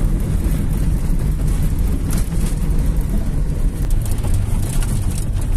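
Car driving on a dirt road, heard from inside the cabin: a steady low rumble of engine and tyres.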